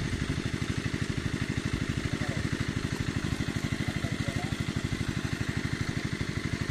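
Engine of the water pump draining the pond, running steadily with a fast, even thumping beat.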